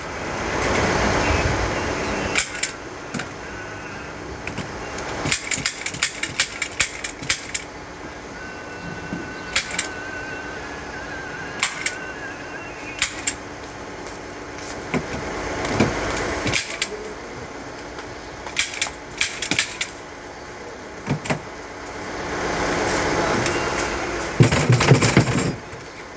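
Upholstery staple gun firing sharp clicks, single shots and quick runs of several, fixing velour fabric to a sofa frame. Swells of rustling from the fabric being pulled and smoothed come in between.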